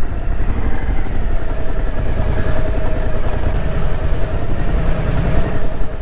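Suzuki V-Strom motorcycle engine running steadily at low speed, recorded on board the bike, with a dense low rumble and a faint steady whine over it.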